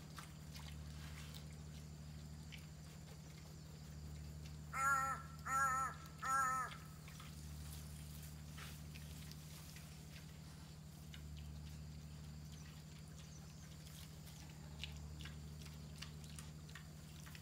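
An animal gives three harsh calls in quick succession, each about half a second long, about five seconds in. A steady low hum runs underneath.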